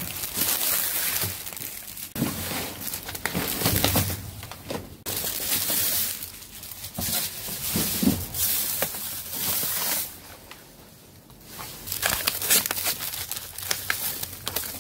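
Plastic bags and food packaging crinkling and rustling as hands rummage through bagged produce and boxes, in uneven stretches with a short lull about ten seconds in.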